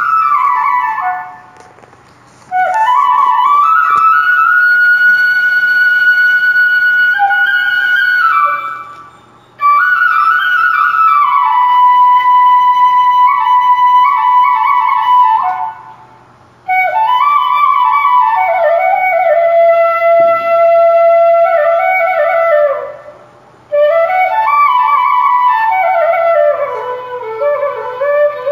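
Background music: a solo flute melody in four long phrases with short breaks between them, its notes sliding up and down and held.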